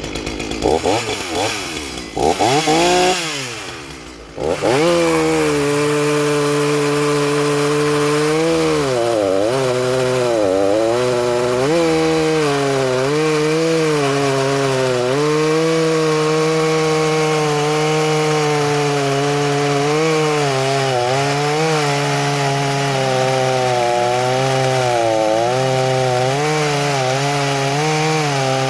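Rebuilt Shindaiwa 488 two-stroke chainsaw revving, then cutting into a log. The engine note sags as the chain bites and recovers again and again through the cut. The owner says it is tuned to run rich.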